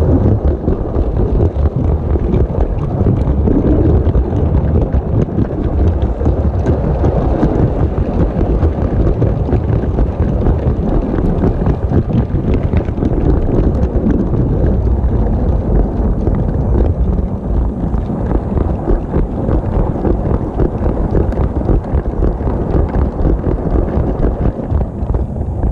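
LEGO train running on plastic LEGO track, heard from a camera riding on the train: a loud, steady rumble and rattle of plastic wheels over the rails and track joints, with a constant patter of small clicks.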